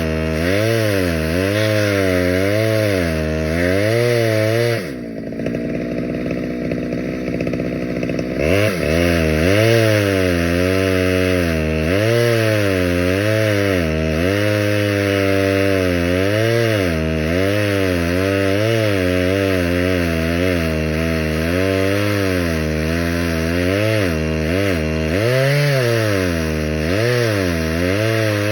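Stihl 011 two-stroke chainsaw cutting through a firewood log, its engine pitch dipping and recovering again and again under load. About five seconds in it drops back toward idle for a few seconds, then revs up into the cut again.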